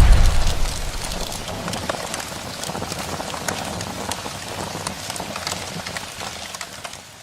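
The low rumble of a loud boom dying away over the first second or so, followed by a steady patter of many small crackling clicks that slowly fades out near the end.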